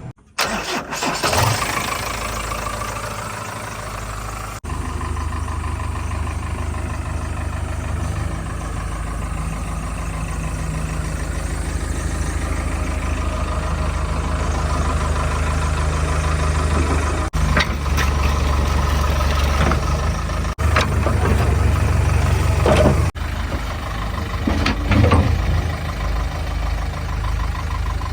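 JCB 3DX backhoe loader's diesel engine running and revving up and down as the machine works, with the sound changing abruptly several times.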